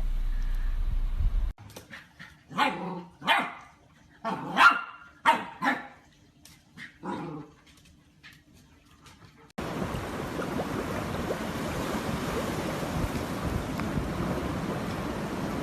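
A dog barking and yelping, about six short calls of varying pitch in the first half. A steady rushing noise then starts suddenly and runs through the second half.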